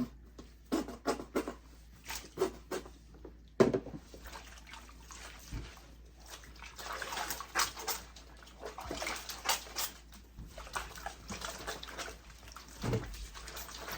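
Wigs being washed by hand in water: splashing and sloshing with scattered short knocks and clicks.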